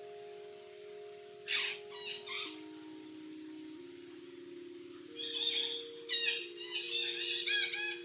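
Parrots calling: a harsh screech about one and a half seconds in, a couple of short calls, then a quick run of repeated chirping notes in the second half. The calls sit over background music of slow, held notes.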